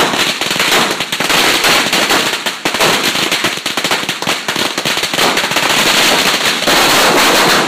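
A long string of firecrackers hung on a pole going off in a rapid, unbroken rattle of bangs.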